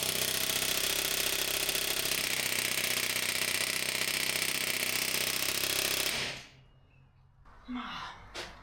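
Pneumatic air hammer hammering rapidly against a seized BMW E36 rear wheel hub for about six seconds, then stopping abruptly; the hub does not budge. A few light knocks follow near the end.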